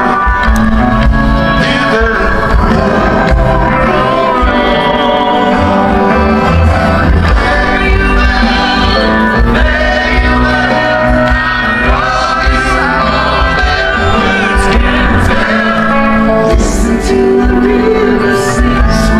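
Live rock band playing, with a singer, heard from the audience.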